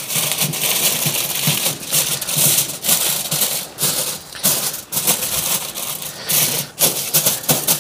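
Sheets of aluminium foil being crinkled and folded by hand, a dense irregular crackling, as the foil is shaped into a bed for the fish.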